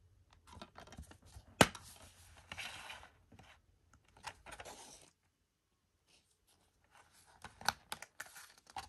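A DVD case and its packaging being handled: a sharp click about a second and a half in, then rustling and scraping. After a short pause, more clicks and rustling come near the end.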